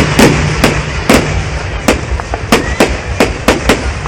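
Fireworks going off in a quick irregular series of sharp bangs, about nine in four seconds.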